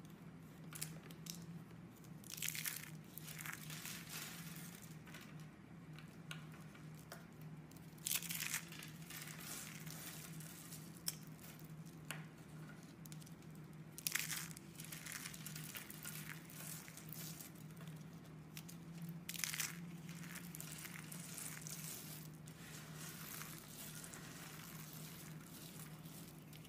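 Dry curls of shaved soap being squeezed and crumbled between the fingers: continuous crisp crinkling and crunching, with four louder crunches about six seconds apart.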